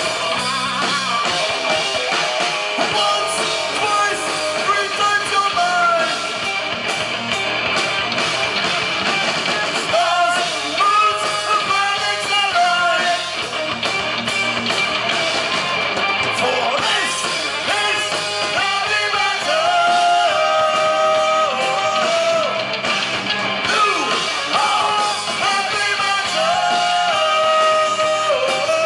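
Live heavy metal band playing: distorted electric guitar, bass and drum kit, with a male singer's vocal line over the top, loudest and clearest from about ten seconds in.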